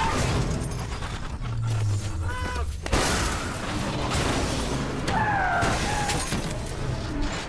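Action-film crash sound effects: a car tumbling over with glass shattering, a sharp loud hit about three seconds in, and a few short whining tones sliding downward, with music low underneath.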